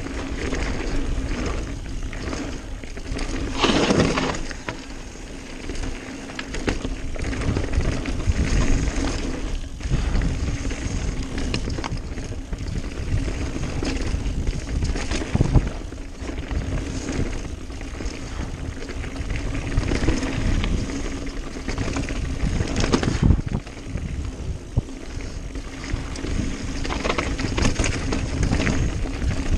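Mountain bike ridden fast down a dirt singletrack: wind buffets the microphone while the tyres rumble over the trail. Bumps, rattles and jolts from the bike come throughout, the hardest about four seconds in.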